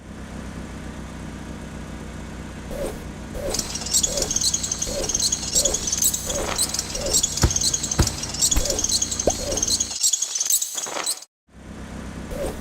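Animated vehicle sound effects: a steady low engine hum with a short repeating tone about twice a second, joined about three and a half seconds in by a high glittering shimmer, and a few sharp clanks near the middle. The sound cuts out briefly near the end.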